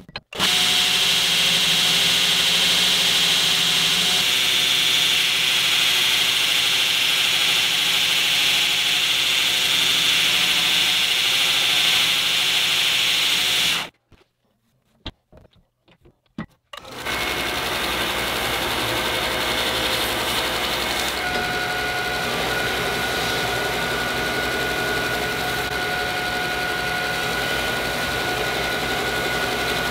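Belt grinder running with steel pressed against the moving belt, a steady hissing grind. It stops abruptly about halfway through, a few clicks follow, then it runs and grinds again, with a thin steady whine joining in a few seconds later.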